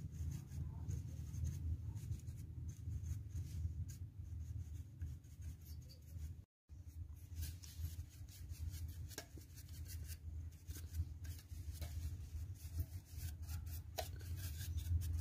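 Dry paintbrush bristles sweeping dust off the neck and deflection yoke of a CRT picture tube: repeated short, scratchy brush strokes over a steady low rumble.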